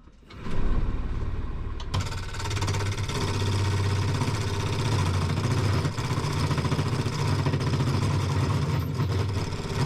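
Wood lathe motor starting with a steady low hum, then a scraper cutting into the spinning pine log from about two seconds in, adding a steady rough scraping noise over the hum.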